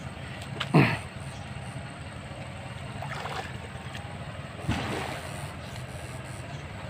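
Steady low hum from a backpack electric-fishing unit as the electrode rods are swept through shallow water, over a haze of water sloshing. A brief sharp sound with falling pitch stands out about a second in, and a weaker one just before five seconds.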